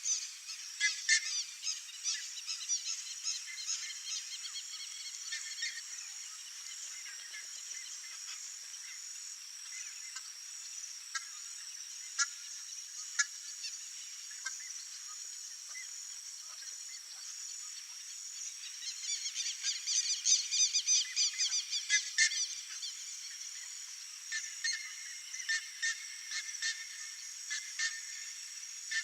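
Buff-necked ibises calling: loud, rapidly repeated honking notes, a dense run in the first few seconds and again about two-thirds of the way in, with scattered single calls between. A steady high-pitched tone runs underneath.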